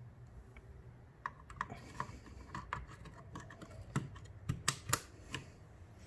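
A DDR4 ECC RAM stick being fitted into a motherboard memory slot: a run of light plastic clicks and taps, with the loudest few clicks about four to five seconds in.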